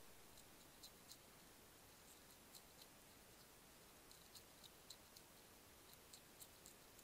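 Faint, irregular clicks and crunches of a hedgehog chewing dry kitten biscuits, over a quiet hiss.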